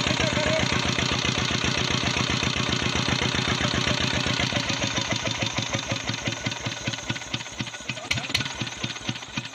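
SD 20 hp Nayab diesel engine running with a rapid, even beat, then slowing as it runs down after being shut off, the beats spacing out and growing quieter over the last few seconds. Two sharp metallic clicks come near the end.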